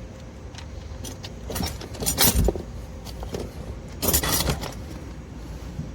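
Rattling, jingling handling sounds over a low steady background, with the loudest clatters about two seconds in and again about four seconds in, and a few light clicks between them.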